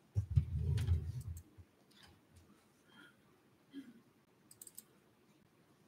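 Muffled low handling noise on a lectern microphone for about a second and a half, then a few faint short clicks near the end.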